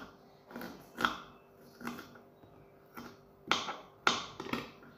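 Kitchen knife chopping a red onion on a wooden board: about seven short knocks at uneven spacing as the blade strikes through to the wood.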